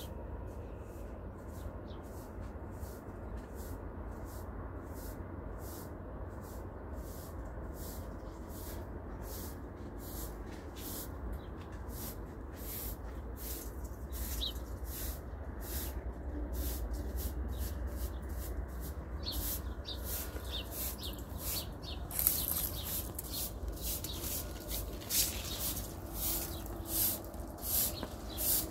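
Quick high chirps repeating all through over a low wind rumble. Near the end a short straw hand broom sweeps a concrete floor in regular strokes about once a second, the loudest sound.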